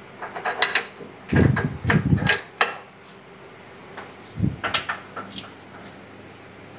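Metal clanks and knocks from a tractor's three-point linkage as an iron tie rod is fitted and pinned to a vineyard shoot-tying machine. They come in three short bouts: one at the start, a longer one from about one to nearly three seconds in, and one around four and a half seconds in.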